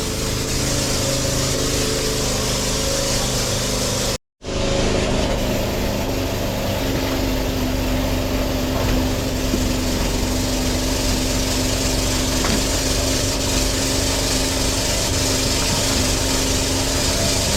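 Chaff cutter running off a generator, a steady engine drone that is very noisy, with a brief cut-out about four seconds in.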